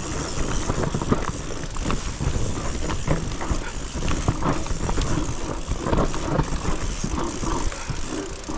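Mountain bike riding down a rough, steep trail: a steady low rumble with frequent irregular rattles and knocks as the bike runs over the ground.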